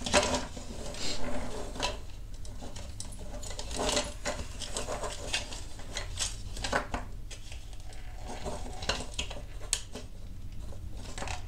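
Hard plastic parts of a 1/16 Bruder Cat compactor model being handled and fitted together: irregular clicks, taps and rubbing as a yellow cover panel is pressed onto the frame.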